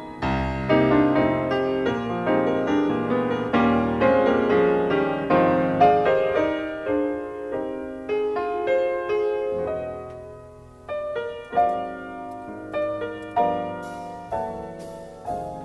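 Background piano music: a flowing run of notes that thins to slow, single notes about a second apart in the last few seconds.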